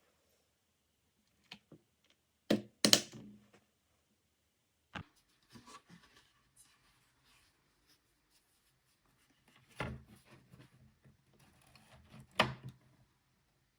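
Handling noises: a scattering of sharp clicks and knocks of hard objects being picked up and set down, with light rubbing between them. The loudest knocks come about three seconds in and again near the end.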